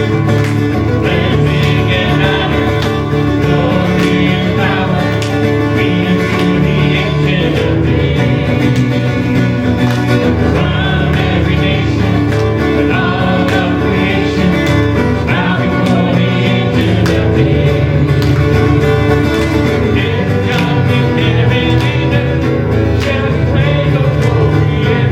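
Country-style song with guitar and singing, playing steadily.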